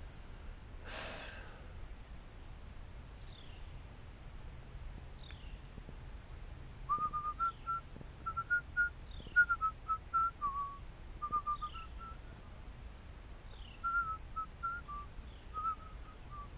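A person whistling a tune, short notes stepping up and down, starting about seven seconds in, over a steady high drone and a short falling chirp repeated every second or two.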